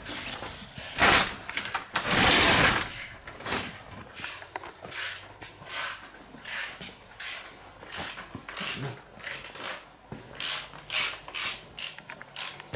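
Ratchet wrench clicking through repeated short strokes, about two a second, tightening the bolts of a motorcycle front fender, with a louder rasping burst about two seconds in.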